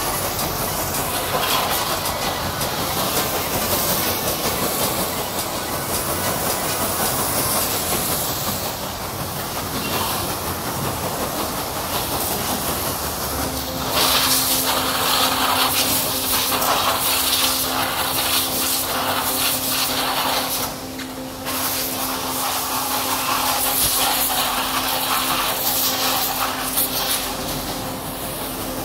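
Pressure washer jet hissing as it sprays water onto a motorcycle, the spray spattering off the bodywork and wheel. About halfway through the hiss grows louder and a steady low hum joins it, with a brief drop in the spray a few seconds later.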